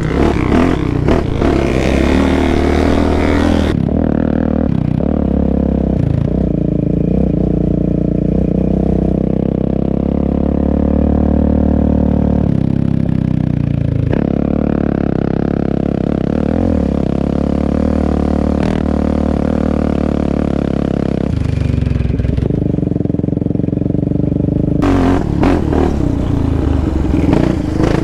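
Yamaha Raptor 700R sport quad's single-cylinder engine running under load on a dirt trail. Its pitch steps up and down several times with the throttle, over a rattle of the machine bouncing along.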